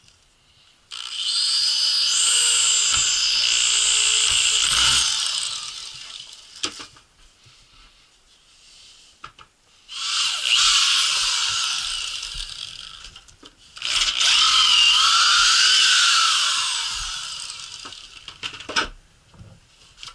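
Handheld electric drill boring into a wooden block, in three runs: one starting about a second in, then two more around ten and fourteen seconds in. The motor's pitch dips and rises as the bit works in the wood, and each run fades away gradually. A few sharp knocks fall between the runs.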